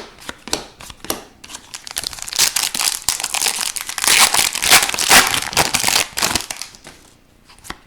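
Crinkling and crumpling of a foil trading-card pack wrapper being handled. It starts after a few light clicks, builds to its loudest a little past the middle, then dies away.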